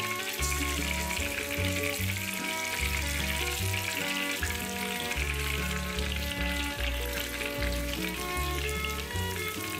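Breaded chicken drumsticks sizzling as they shallow-fry in hot oil in a pan, a steady crackling hiss, strongest in the middle. Background music with held notes and a bass line plays along.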